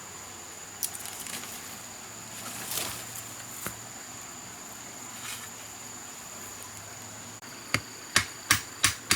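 Steady high-pitched insect trilling, with a few light clicks and then a quick run of four or five sharp knocks near the end.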